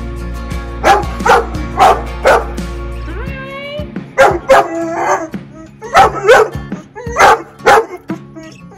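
Great Pyrenees barking repeatedly in deep barks, in quick pairs and runs, with a rising drawn-out note a little past three seconds in: barrier-aggressive barking at a person approaching the gate. Background music plays under it.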